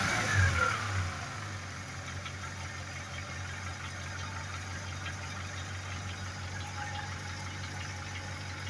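VAZ classic (Lada) inline-four engine, fitted with a new camshaft and camshaft bed, dropping back from a rev about a second in and then idling steadily, with no camshaft tapping to be heard.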